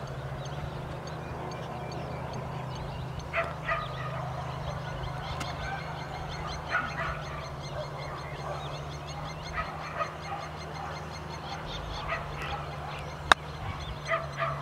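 Geese honking now and then, a few short calls at a time, over a steady low hum. About 13 seconds in, a single sharp click of a golf club striking the ball, as on a chip shot.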